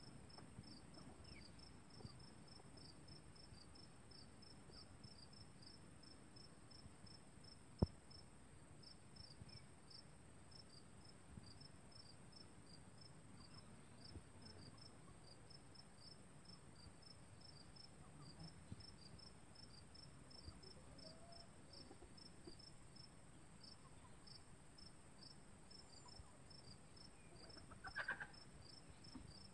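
Faint insects chirping, likely crickets, in a fast, even train of high chirps over a quiet background. There is a single sharp click about eight seconds in and a brief louder sound near the end.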